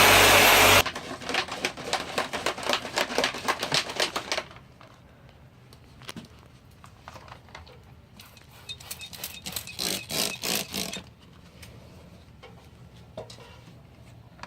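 A power tool running loudly cuts off about a second in. Then come two runs of quick, closely spaced rubbing strokes, each lasting a few seconds, with a quiet gap between.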